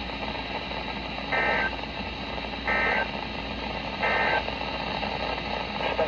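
Three short, buzzy digital data bursts about 1.4 s apart, played through a weather radio's speaker over steady radio hiss. They are the NOAA Weather Radio SAME end-of-message code, which signals that the alert broadcast has ended.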